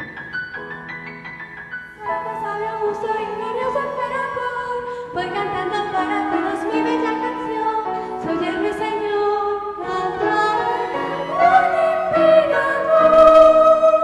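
Stage-musical song: instrumental accompaniment with a voice singing over it from about two seconds in, the pitch wavering, and ending on a long held note.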